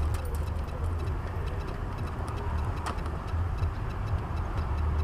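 Relays in the 2008 Chevy Uplander's under-hood fuse box chattering, a run of fast faint ticks over a steady low hum, with one sharper click about three seconds in. The chatter is the sign of a missing engine ground, which keeps the car from cranking.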